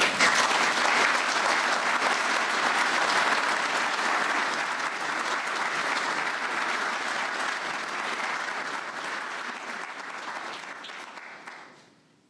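An audience applauding, steady for about ten seconds and then fading out near the end.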